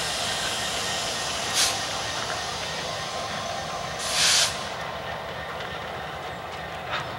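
Canadian Pacific diesel locomotive rolling slowly away, its engine and wheels a steady rumble. Two short, loud bursts of air hissing come about 1.5 and 4 seconds in.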